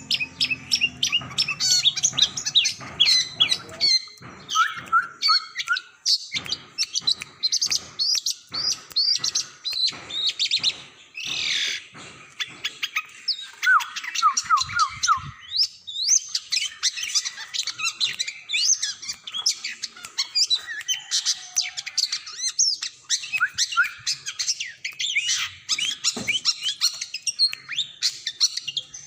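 Long-tailed shrike (cendet) in full song: a fast, unbroken stream of high chirps, trills and short whistles, with one held note about twelve seconds in and a quick run of lower notes just after.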